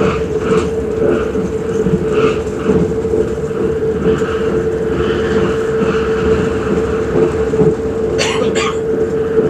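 Passenger train running at speed, heard from inside the carriage: steady running noise with a constant tone, and short clicks of the wheels over the rails. A brief burst of high rattling comes about eight seconds in.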